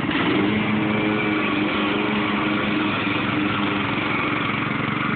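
Riding lawn mower's small engine running with the throttle opened up, its pitch stepping up just after the start and then holding steady.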